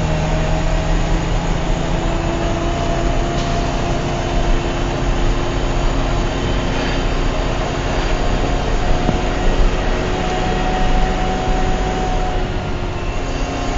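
Concrete mixer truck's diesel engine running steadily under way, heard from inside the cab with road noise.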